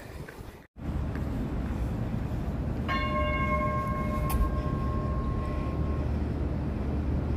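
A tram rolling on its rails with a steady low rumble sounds its warning bell once about three seconds in: a single ringing chime that fades over about three seconds.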